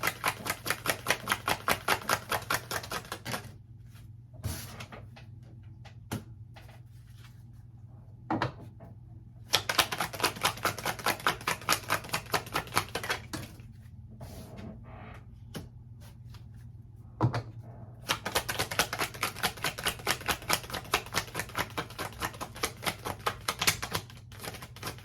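A deck of tarot cards being shuffled by hand, a fast, regular clicking of about six card-slaps a second. It comes in three runs with short pauses between them, where a few single taps of cards being handled are heard.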